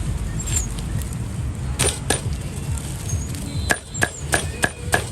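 Cleaver chopping pork trotter on a chopping block: two sharp blows about two seconds in, then a quick run of evenly spaced chops, about three a second, from near the end.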